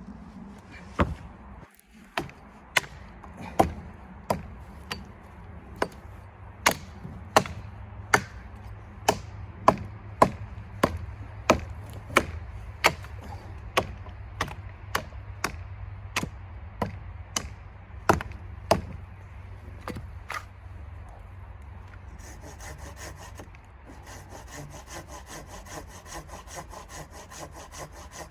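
Wood being chopped with a hatchet or axe: about two dozen sharp strikes, one roughly every 0.7 s, stopping near two-thirds of the way through. A few seconds later a hand saw starts cutting wood in steady back-and-forth strokes.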